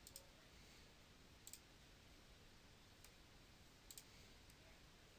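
A handful of faint computer mouse clicks, some in quick pairs, at irregular intervals over near-silent room tone.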